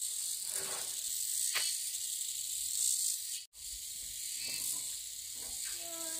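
Insects chirring steadily, a continuous high-pitched hiss.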